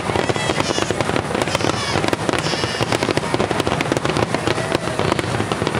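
Fireworks finale barrage: a dense, continuous run of bangs and crackles with no pause between them.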